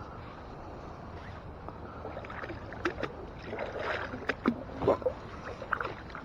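Steady wind hiss, then an irregular run of sharp clicks and knocks with short splashy sounds over the second half, from magnet-fishing gear being worked in a canal.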